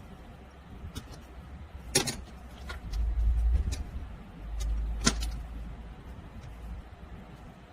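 Low rumbling handling noise with a few sharp clicks, the loudest about two seconds in and again about five seconds in.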